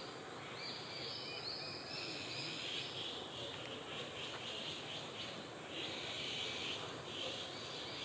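Faint, high-pitched calls of juvenile Japanese sparrowhawks repeated in a quick series, a couple of notes a second. They run together into a steadier high-pitched sound from about halfway on.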